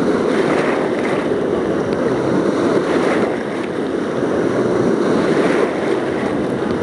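Waves washing and churning in a wave pool, the water sloshing right at the microphone in a steady rush.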